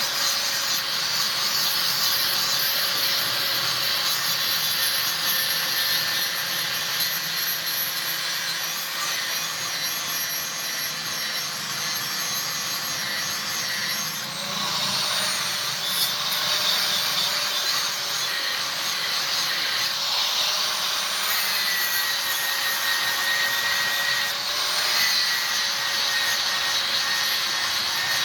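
Electric grinder running continuously while grinding a steel blade made from a truck leaf spring, with a steady hiss of abrasive on metal. The motor's pitch wavers a few times as the work is pressed in and eased off.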